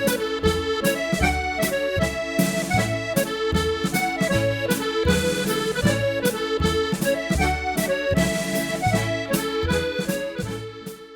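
Accordion playing a Scottish pipe march arranged as a Canadian Barn Dance tune: a melody over a steady bass-and-chord accompaniment. It fades away near the end.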